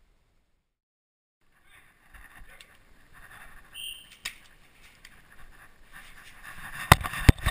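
Two sharp clacks of spring airsoft gunfire near the end, over low rustling movement. The first second and a half is dead silence.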